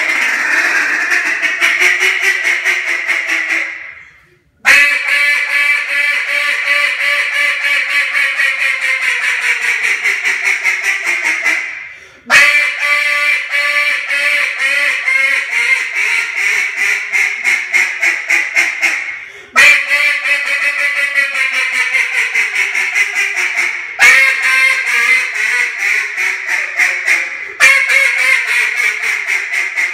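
Molded Black River Duck Calls Tyrant duck call blown in long runs of rapid quacks. Each run starts loud and trails slightly down in pitch, with short breaks between runs.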